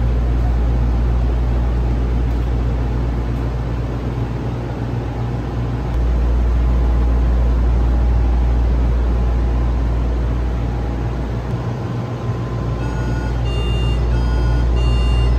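Cabin noise of the Taoyuan Airport Skytrain people-mover car: a steady low rumble and hum that gets louder about six seconds in. Near the end a series of short electronic beeps at a few different pitches sounds over it.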